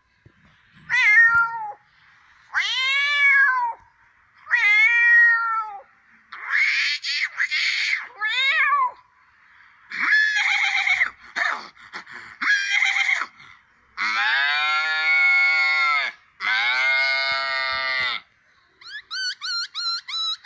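A man imitating animals with his voice: a run of cat-like meows, each about a second long and rising then falling in pitch, then two longer held calls, and quick short yips near the end.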